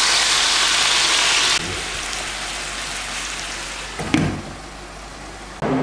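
Meat frying in hot oil in a pan, a steady sizzling hiss that drops abruptly in level about a second and a half in. About four seconds in a glass lid is set on the pan with a single clink, and the sizzling is quieter after it.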